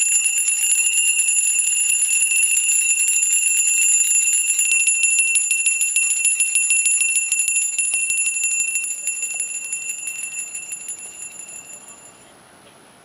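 Several small metal handbells rung rapidly and continuously, giving a steady high ringing with fast clapper strikes. The ringing fades from about eight seconds in and stops near the end.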